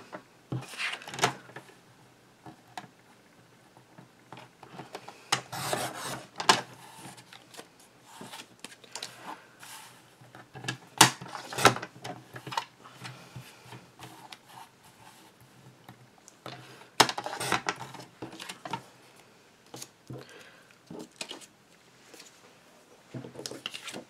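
Sliding paper trimmer cutting card stock: the cutter head rasps along the rail in several short strokes, each about a second long and a few seconds apart, with clicks and paper handling between the cuts.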